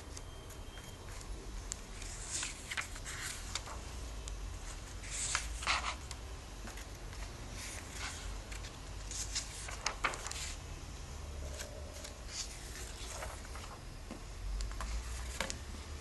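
Paper rustling and pages being turned while a comic book is handled and flipped through, in short irregular rustles over a low steady hum.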